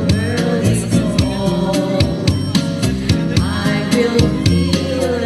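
Karaoke music playing with a steady beat, with a voice singing along over it.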